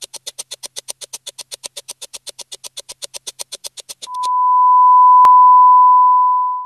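Countdown timer sound effect: fast, even ticking at about eight ticks a second, which stops about four seconds in. A loud, steady single-pitch beep follows and lasts about two and a half seconds, with one brief click partway through it.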